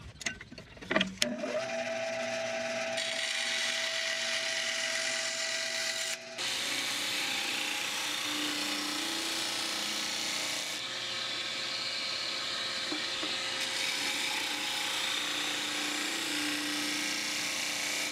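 Bandsaw starting and running, cutting into the splined wooden frame; after a break about six seconds in, a disc sander runs steadily as the frame's corners are sanded flush against the disc. A few knocks from handling the frame come first.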